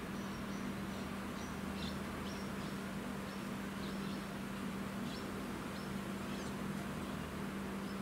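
Outdoor ambience: a steady low hum under faint, brief high-pitched chirps of distant small birds, several a second at irregular intervals.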